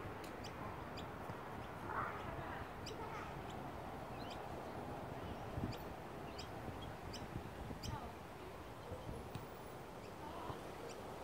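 Quiet outdoor park ambience: faint, distant voices and scattered short, high bird chirps, with one soft thump about five and a half seconds in.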